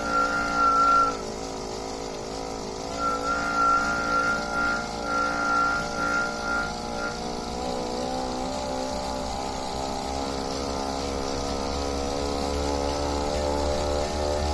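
Tacx Bushido bike trainer running with a steady whining hum, and a high squeal that pulses on and off through the first half and then stops. This is the unwanted noise from a trainer that is new out of the box.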